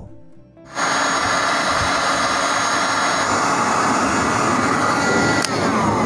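Electric heat gun blowing hot air, a steady rushing fan-and-motor noise that starts about a second in, used to shrink heat-shrink sleeving onto a copper refrigerator pipe. A single click sounds near the end.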